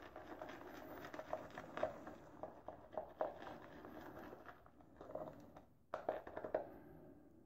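Boar-bristle shaving brush whipping Noble Otter shaving soap into a creamy lather in a bowl: faint, irregular wet squishing with soft clicks, dying away near the end.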